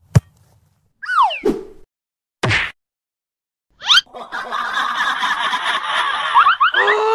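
Cartoon sound effects: a sharp click, a falling whistle-like tone, and a short swish, then about three seconds of dense noisy chatter with rising pitch glides near the end.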